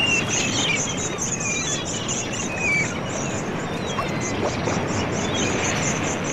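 Seaside ambience: a steady rushing noise under birds chirping in short rising and falling calls, mostly in the first half, and a high, rapidly pulsing chirr that runs on throughout.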